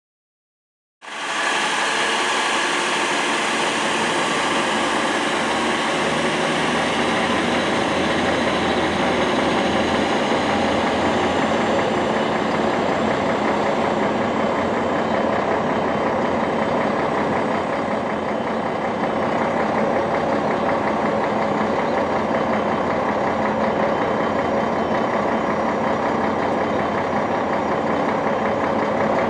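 DB Class 612 diesel multiple unit's diesel engines running under power as it pulls out and draws away, a steady engine sound with many level tones. It starts abruptly about a second in, and its upper treble fades from about ten seconds in.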